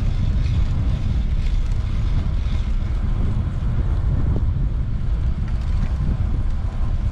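Wind buffeting the microphone of a camera on a moving bicycle: a steady low rumble.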